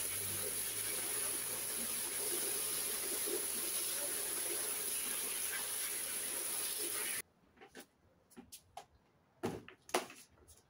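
Water spraying from a garden hose nozzle into a plastic mop bucket, a steady hiss that cuts off abruptly about seven seconds in. After it, a few light knocks and clicks from the mop and bucket.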